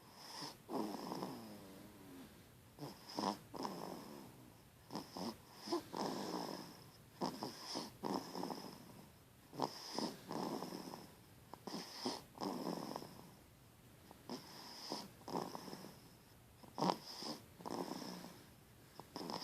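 Snoring in a steady rhythm, with a snore about every two seconds.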